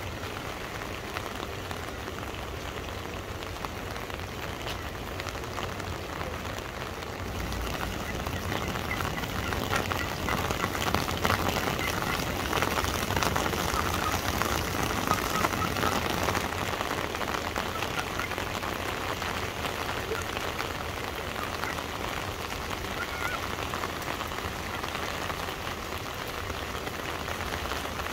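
Heavy rain falling and striking hard surfaces, a dense, steady hiss of countless drop hits. It grows heavier about eight seconds in, then eases slightly.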